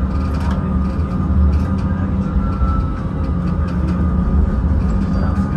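Tram running slowly along street track, heard from inside the driver's cab: a steady low rumble with faint steady whining tones above it.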